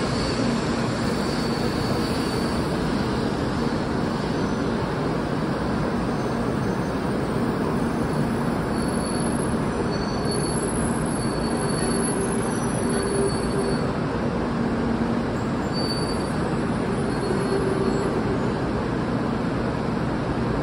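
Taiwan High Speed Rail 700T high-speed train pulling into the station and slowing to a stop: a steady rolling rumble of wheels and running gear, with faint high squeals coming and going.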